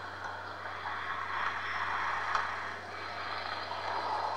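Sound-effect track of an AtmosFX Halloween animation of figures trying to break through, played over a speaker: a rough, shifting noise with no clear tone, over a low steady hum.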